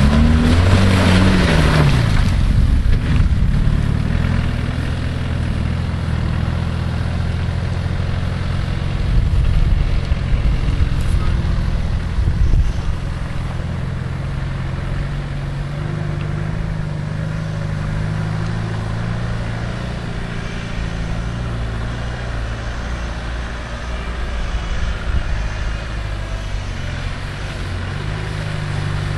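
Land Rover Discovery's engine pulling hard through mud, loudest in the first couple of seconds with the revs falling away, then running steadily at low, even revs as the 4x4 drives on.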